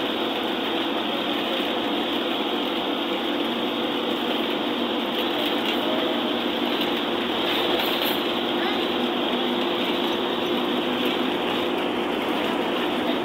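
Steady cabin noise inside a bus cruising at speed: road and tyre rumble with the engine's even hum, unchanging throughout.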